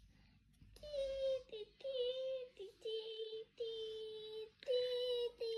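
A child singing a slow tune of long held notes, starting about a second in.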